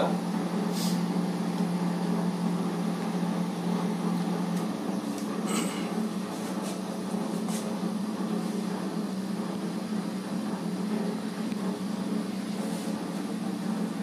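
IFB 30SC2 convection microwave oven running in convection mode at 200 degrees: a steady hum with a fan-like whir. Its deeper tone weakens about five seconds in, and a few faint clicks sound over it.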